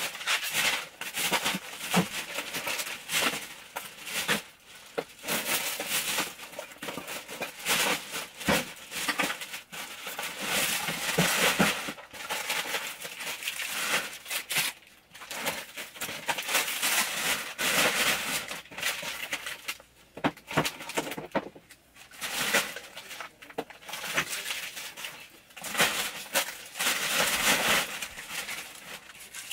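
Black plastic bin bag rustling and crinkling as rubbish and food packaging are picked up off the floor and stuffed in, with irregular knocks and clatters of items dropping.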